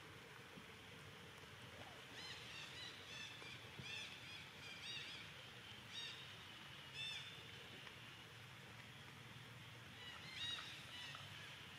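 Faint outdoor ambience with short, high, arched chirping calls in loose runs of several a second, pausing for a few seconds near the middle, over a steady high hiss.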